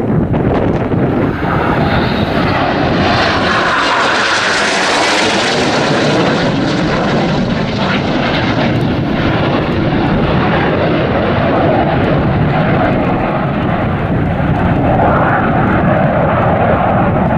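Jet noise from a formation of BAE Hawk T1 jet trainers with Adour turbofan engines, a loud continuous rush. It swells brightest about four to five seconds in as the jets pass, with a sweeping, phasing quality.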